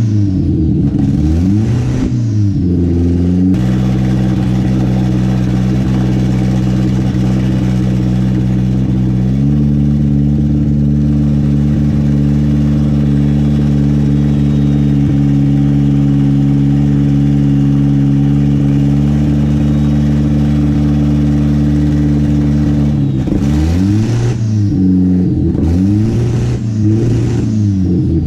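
Turbocharged built Nissan KA24 2.4-litre four-cylinder engine with a Pulsar PSR 3582 turbo, revving on a freshly finished build. It is blipped up and down for the first few seconds, held at a steady raised speed that steps up once about nine seconds in, then blipped again in quick revs near the end.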